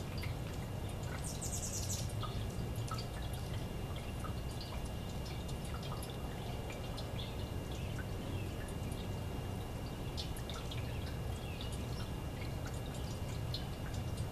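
Water from a tiered metal lily-pad fountain spilling and dripping from bowl to bowl into the basins below, a steady patter of small splashes over a steady low rumble.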